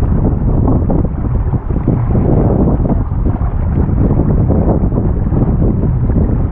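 Strong gusty wind, over 20 knots, buffeting the microphone aboard a small wooden gaff-rigged sailboat under sail: a loud, steady low rumble of wind noise that swells and dips a little with the gusts.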